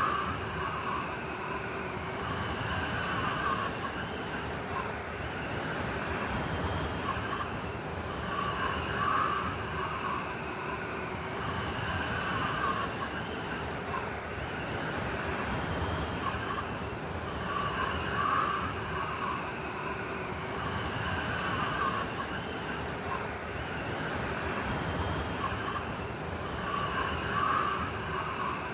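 Blizzard wind howling steadily, its wavering whistle swelling and easing in a pattern that repeats about every nine seconds.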